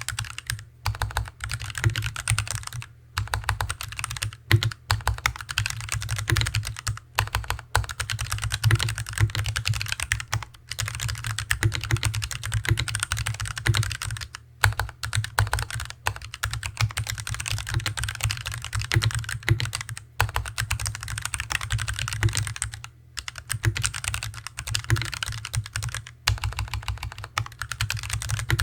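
Steady, fast typing on a Hansung TFG ART mechanical keyboard with stock Artbox Red linear switches, a dense run of key clacks with a few brief pauses. A strong low hollow resonance from the desk sits under the keystrokes.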